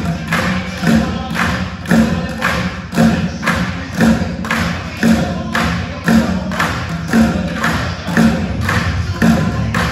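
A group bucket drumming on upturned plastic buckets with drumsticks, keeping a steady rhythm of hollow thuds, with a heavy accent about once a second and lighter strokes in between.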